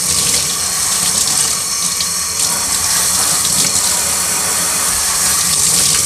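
Kitchen faucet running steadily, the stream splashing over a vacuum cleaner filter held and squeezed under it and into the sink.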